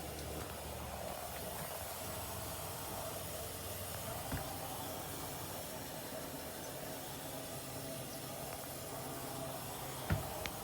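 LG washing machine running: a steady hiss with a low hum, and a soft knock about four seconds in and another near the end.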